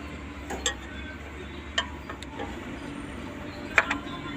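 A few short, sharp clicks and knocks, the loudest near the end, over a steady low hum.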